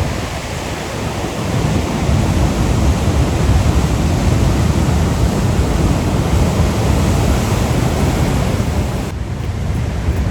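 Ocean surf washing against a rocky shore: a continuous rush of breaking waves, with wind rumbling on the microphone. It swells about two seconds in and eases a little near the end.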